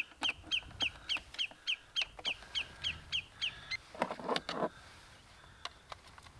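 A bird calling: a rapid run of short, falling notes, about four a second, that stops a little past halfway. A brief, lower, rougher call follows.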